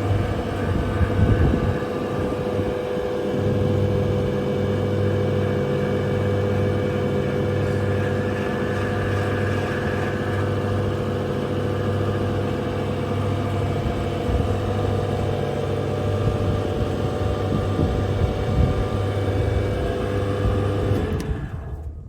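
REMA DMMA-35 sliding-table circular saw running steadily, its roughly 4 kW motor and spinning blade giving a constant hum. The sound cuts off near the end.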